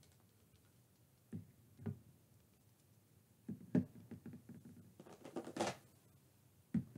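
Soft knocks of plastic toy figures being set down on a tabletop, a few separate taps followed by a longer shuffling noise as they are placed.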